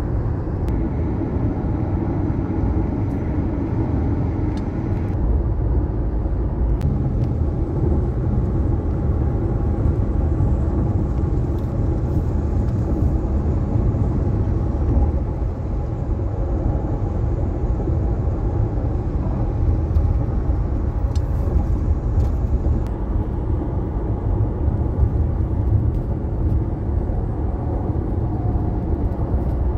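Steady road noise inside a car cruising at freeway speed: a low tyre and engine rumble heard through the cabin.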